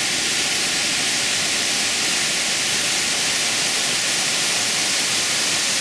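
Waterfall rushing steadily: an even hiss of falling water with no let-up.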